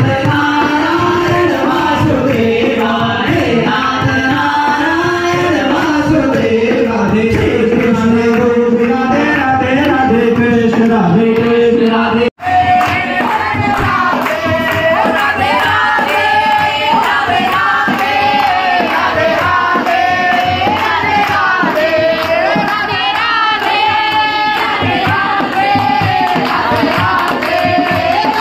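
Group singing of a Hindu devotional bhajan (kirtan) into microphones, accompanied by a dholak hand drum and clapping. The audio cuts out for an instant about twelve seconds in, then the singing carries on.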